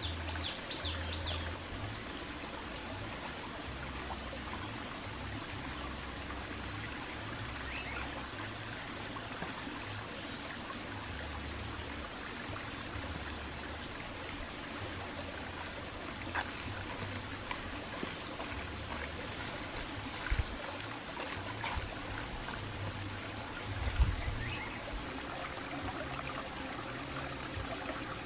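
Steady outdoor background noise like a trickling stream, with a continuous high-pitched whine over it. A few brief knocks, the sharpest about three-quarters of the way through.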